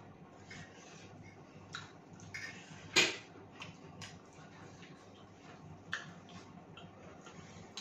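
Close-up eating sounds: chewing and crunching of fried chicken, with scattered small clicks and a few sharp clicks, the loudest about three seconds in and another near six seconds.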